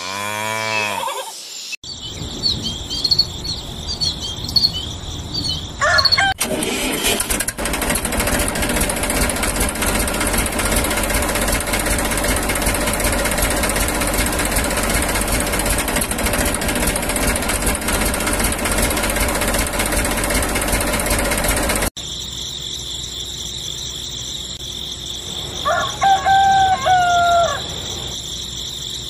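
A tractor engine runs steadily through most of the stretch. Near the end a rooster crows, over a high, steady chirping background.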